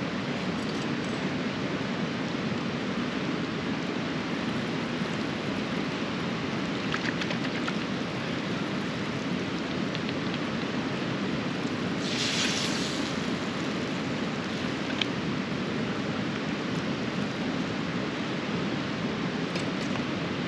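Steady rushing of a fast-flowing river running high after heavy rain. A brief hiss comes about twelve seconds in, and a few faint clicks sound here and there.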